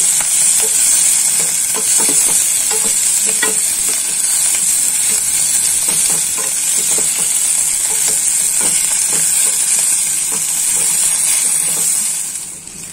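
Potato cubes sizzling in butter in a steel pan, stirred with a wooden spatula that scrapes and knocks against the pan. The sizzle falls away sharply near the end.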